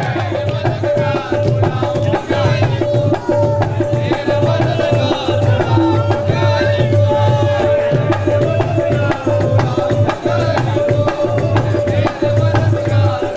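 Qawwali ensemble playing without singing: dholak and tabla keep a fast, driving rhythm under a harmonium and keyboard melody, with one note held steady through most of the passage.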